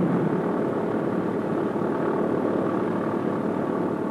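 The radial engines of a Boeing B-17 running steadily at low taxiing power as the bomber rolls along the ground.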